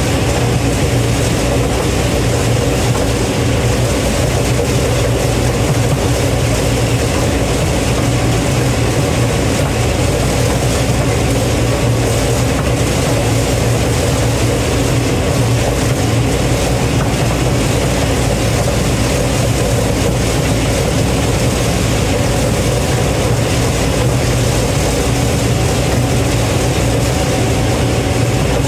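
Combine harvester running steadily at a constant engine speed, a loud unbroken machine drone with a strong low hum.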